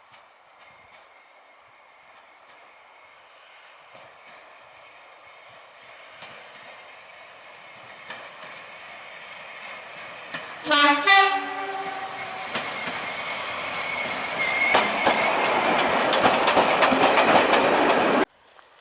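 A train approaching on the heritage line and sounding its horn once, about ten seconds in. Its running noise grows steadily louder, with wheels clicking over the rail joints as it draws near, until the sound cuts off abruptly near the end.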